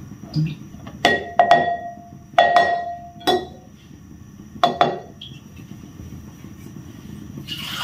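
A plastic measuring cup knocked against the rim of a glass mixing bowl to shake out flour: several sharp clinks, some in quick pairs, over about five seconds, the glass ringing briefly after each. A steady hiss starts near the end.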